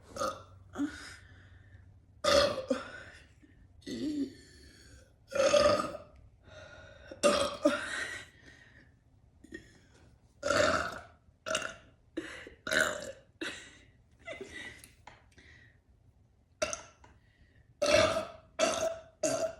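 A woman burping over and over: a long run of loud belches about every second, some coming in quick clusters of two or three.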